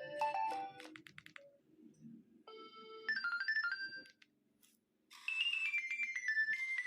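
Nokia 2300 mobile phone playing several different ringtone melodies one after another. One tune ends about a second in, a short one plays from about two and a half to four seconds in, and after a brief pause a third begins about five seconds in.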